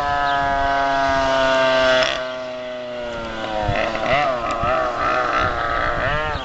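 Race car engine running at high revs, its pitch sliding steadily down over the first two seconds, then, after a sudden change about two seconds in, revving up and down in quick wavering blips.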